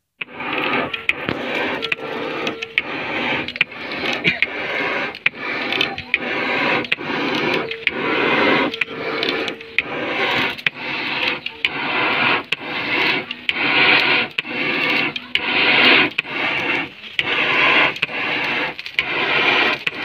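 Forge bellows pumping air into a charcoal fire: a rushing whoosh with each stroke, repeating steadily at about one and a half strokes a second.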